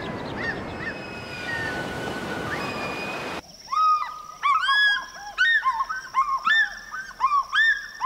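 Wild birds calling. First there are thin whistled seabird calls over a steady rushing hiss. About three and a half seconds in, this switches to a dense series of short, arching bird calls repeated many times over a steady high tone.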